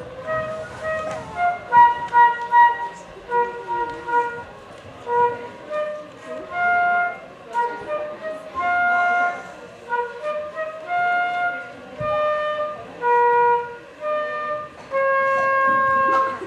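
Solo flute playing a slow melody of single notes, moving in shorter notes at first and longer ones later, ending on a long held note near the end.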